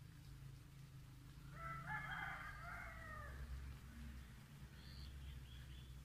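A rooster crowing once, a single long call of about two seconds starting about a second and a half in, with a few faint high chirps around it.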